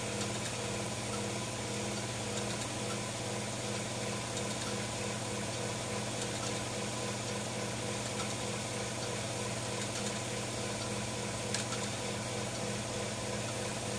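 A steady mechanical hum with a few faint, irregular clicks.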